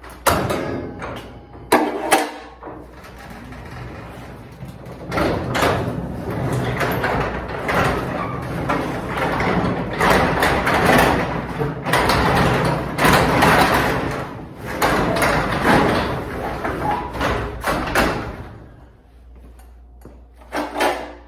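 Sectional steel garage door, its springs removed so it hangs as dead weight, being lowered by hand: two sharp knocks at the start, then a long rattling rumble of the rollers running down the tracks and the panels shaking. It settles with a couple of short knocks near the end.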